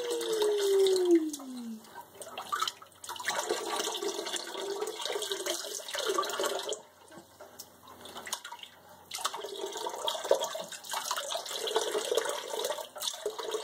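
Water poured from a small plastic cup over a baby sitting in a sink bath, splashing into the bathwater in three spells of a few seconds each with short quieter gaps between. At the start a voice slides downward in pitch.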